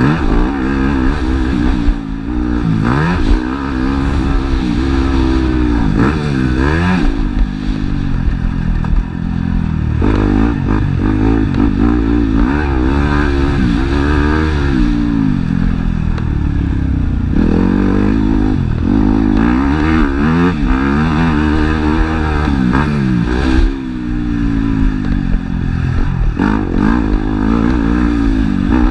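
Motocross bike engine heard close up from on the bike, revving up and dropping back again and again as it rides the track, the engine note rising and falling every couple of seconds.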